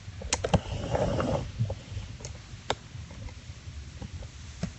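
Soft rustling and a few sharp clicks from kittens moving about and being handled close to the microphone.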